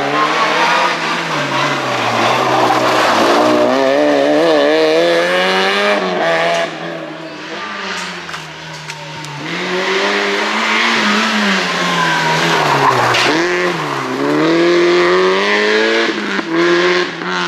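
Two rally cars pass one after the other, each engine revving hard with its pitch repeatedly climbing and dropping through gear changes. A quieter gap with a few sharp clicks falls between the two passes.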